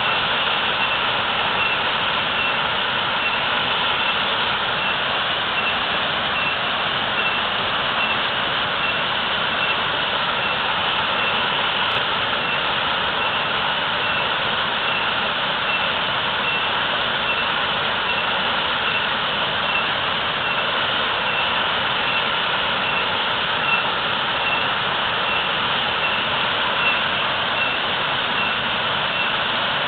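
Natural waterfall roaring: a loud, steady rush of falling water that holds the same throughout.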